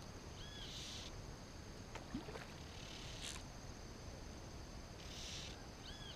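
Faint outdoor ambience at a pond: a steady thin high hum with soft hissy bursts recurring about every two seconds, a short arched chirp twice, near the start and near the end, and a faint click about two seconds in.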